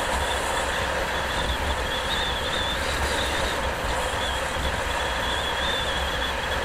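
Steady wind and road noise from riding along a street, with a low buffeting rumble and a thin, wavering high whine that comes and goes.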